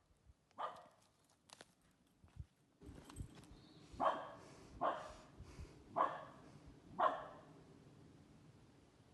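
A dog barking: one bark just under a second in, then four more about a second apart from about four seconds in.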